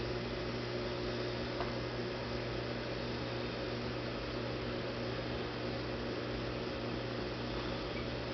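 Aquarium equipment running: a steady electrical hum with a few higher steady tones over an even hiss, with one faint tick about one and a half seconds in.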